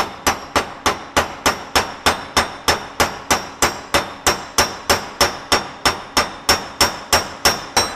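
Hand hammer peening a fresh air-hardening tool steel weld deposit on D2 tool steel: steady, even metal-on-metal strikes, about three to four a second, each with a brief metallic ring. The peening stress-relieves the weld while it cools.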